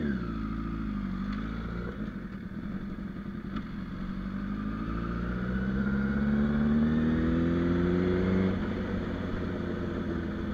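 Honda CBR1000RR Fireblade's inline-four engine on the move: a short rev at the start, then the engine pitch climbs steadily for several seconds as the bike accelerates. About eight and a half seconds in the pitch drops abruptly, and the engine runs lower and steadier after that.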